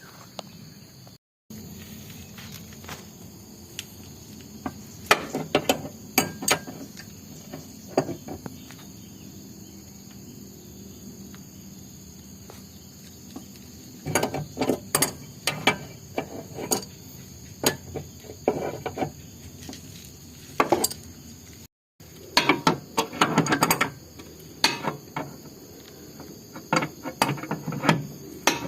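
Metal clinks and knocks in irregular bursts of quick clicks, the sound of a car jack and hand tools being worked against a dented car body, over steady chirping of insects.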